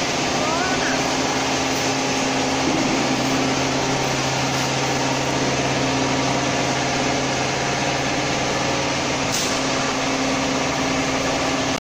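Factory machinery running steadily: a constant hiss with a low hum under it.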